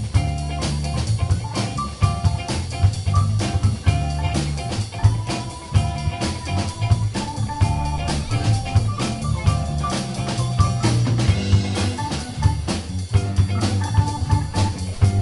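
Live band playing through a stage PA: drum kit keeping a steady beat under bass guitar and electric guitars, with long held lead notes in the middle.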